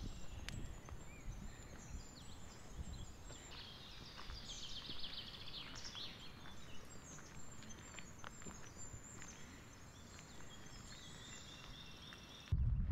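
Several songbirds singing in conifer woods, with many overlapping chirps and quick trills. Near the end a louder low rumble cuts in suddenly.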